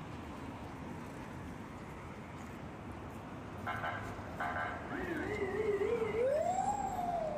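Busy city street ambience of traffic and passers-by. About four seconds in come two short steady tones. Then a wavering tone climbs and falls over a couple of seconds near the end.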